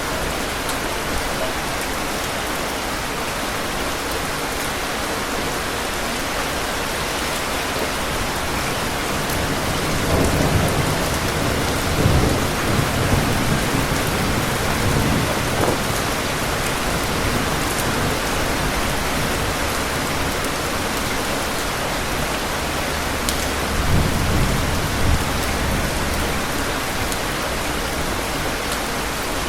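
Steady rain with thunder rumbling twice: a long roll about a third of the way in and a shorter one near the end.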